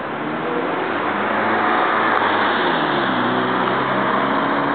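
A car driving past close by on the street: engine and tyre noise grows louder over the first couple of seconds, and the engine note falls in pitch as it goes by.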